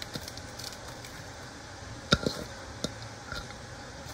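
Sliced raw onions being tipped and pushed by hand from a plastic bowl into an enamelled pot of shredded cooked fish. There are a few light knocks of the bowl on the pot, the sharpest just over two seconds in, over a steady low background hum.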